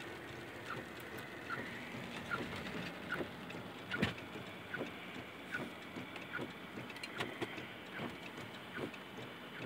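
A vehicle's turn-signal or hazard flasher ticking steadily, a bit more than once a second, inside the cabin of the parked vehicle. One sharper knock comes about four seconds in.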